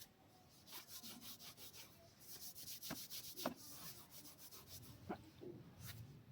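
Hands rubbing through oiled hair and scalp during a head massage: a faint run of quick, short rubbing strokes, with a few sharp clicks about three seconds in and again near five seconds.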